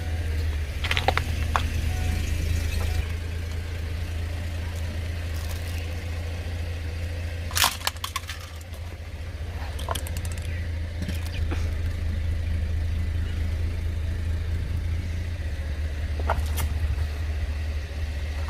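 Car engine running with a steady low hum, broken by a few sharp cracks and pops as objects are crushed under the tyres. The loudest crack comes about seven and a half seconds in, with others about a second in and near ten and sixteen seconds.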